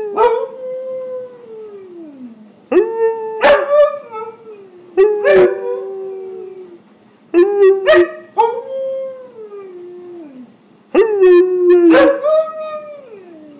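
Husky howling and 'talking' in a string of about five drawn-out calls with short gaps between, each wavering in pitch and sliding down at the end.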